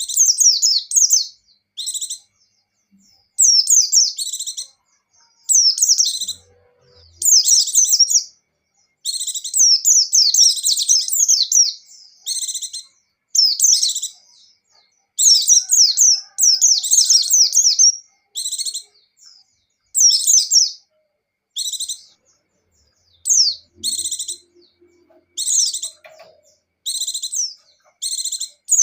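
White-eye (pleci buxtoni) singing fast, high twittering song phrases, each half a second to a few seconds long, with short pauses between them.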